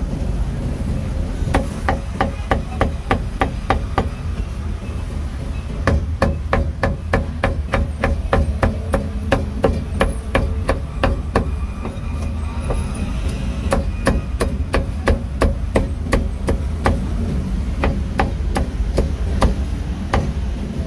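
Steel meat cleaver chopping pork belly on a round wooden chopping block: rapid, repeated sharp chops in runs of about three a second, with a short let-up in the middle.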